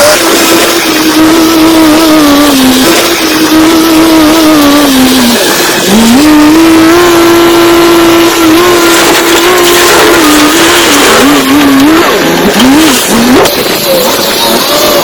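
Heavy earthmoving machine's diesel engine running loud under load. Its pitch holds, sags slowly for a few seconds, climbs back, then wavers up and down near the end as the throttle and load change.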